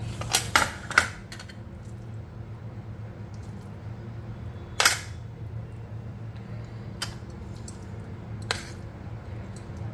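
Steel spoon clinking and tapping against a plate while scooping minced meat into a hollowed brinjal. A few separate sharp taps: three close together in the first second, the loudest near the middle, and a couple of lighter ones later.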